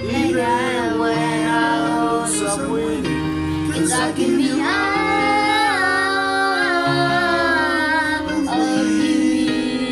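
A girl singing into a handheld microphone with a man singing along, over an instrumental backing track, with long held notes that slide in pitch.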